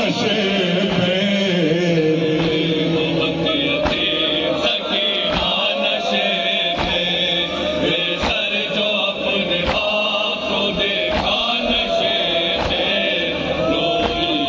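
Chanted Urdu noha (lament), voice holding long notes, over a steady beat of sharp strikes about every second and a half, typical of matam (chest-beating).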